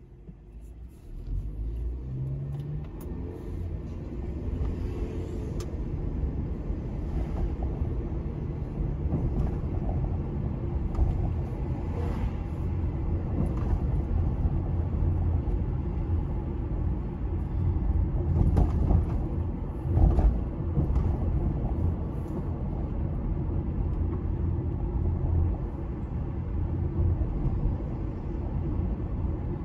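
Car engine and road rumble heard from inside the cabin: the engine revs up with a rising pitch as the car pulls away from a standstill about a second in, then settles into a steady low rumble of driving.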